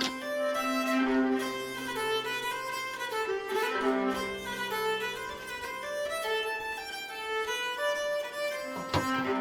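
Background folk fiddle music: a melody played over long held low notes.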